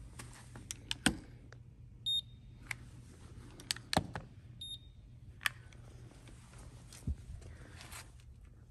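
Electronic paint thickness gauge giving two short, high beeps, about two and a half seconds apart, as readings are taken on the car's panels. Sharp clicks and knocks from handling come in between, the loudest about a second in and again about four seconds in.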